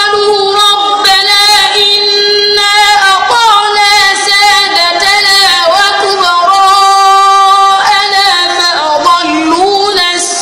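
A boy reciting the Quran in the melodic murattal chanting style, his voice loud and strong, drawing out long held notes that break into ornamented turns of pitch every few seconds.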